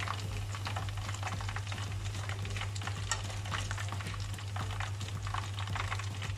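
Battered chicken drumsticks frying in hot oil on their second fry, a steady sizzle full of small crackles and pops, with a steady low hum underneath.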